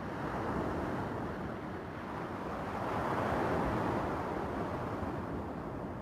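Small waves breaking and washing up a stony beach, the surf swelling to its loudest about halfway through, then easing.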